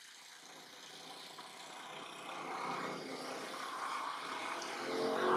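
A motor vehicle passing, its noise growing steadily louder toward the end.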